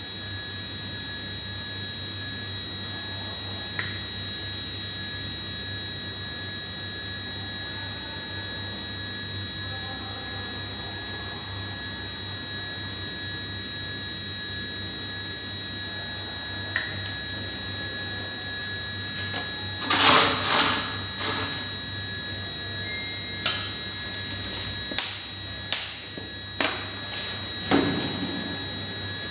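Exhaust valve being hand-lapped against its seat in a Dodge Nitro cylinder head: a short bout of scratchy grinding about two-thirds of the way in, then several light metallic clicks and taps as the valve is worked. The seat is deep and is being ground in to level it. A steady hum with a high whine runs underneath throughout.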